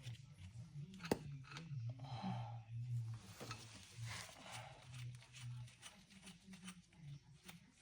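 Quiet handling noises: one sharp click about a second in, then short bouts of faint scraping or rustling over a low steady hum.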